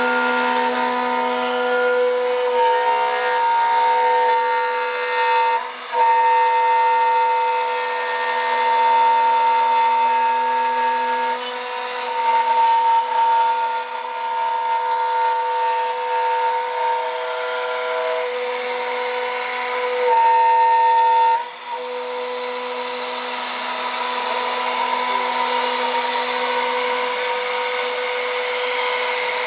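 CNC wood router's spindle running with a steady high whine while its bit cuts wood, with a rough cutting noise under it. The sound dips briefly twice, about six seconds in and again after about twenty-one seconds.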